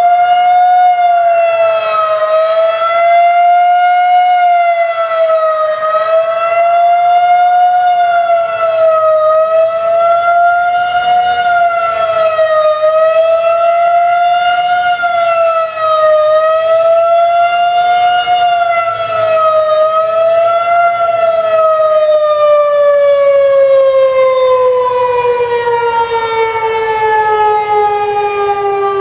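Federal Signal 2001-130 outdoor warning siren sounding a fast wail: a loud, steady tone wavering up and down in a quick, shallow cycle every few seconds. Near the end the pitch falls steadily as the siren winds down.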